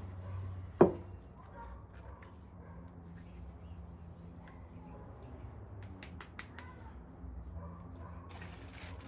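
Hands working masa dough into small tortilla balls: a sharp slap about a second in, then soft handling ticks over a low hum, and a short rustle near the end at the plastic-lined tortilla press.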